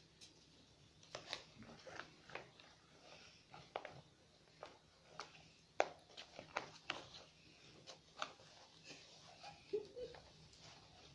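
Faint, irregular clicks and taps of small hands handling the pieces of a felt quiet book.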